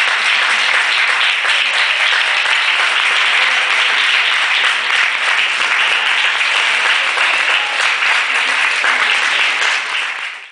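Audience applauding, a dense, steady wash of clapping that falls away sharply near the end.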